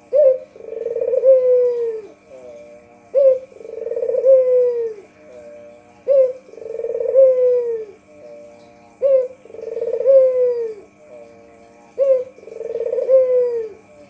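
White Barbary dove (puter) cooing: five phrases about three seconds apart, each a short sharp note followed by a long, swelling coo that falls in pitch.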